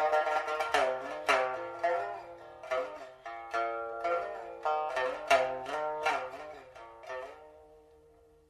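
Solo pipa music: a run of plucked notes, some bent in pitch, dying away on a single held note near the end.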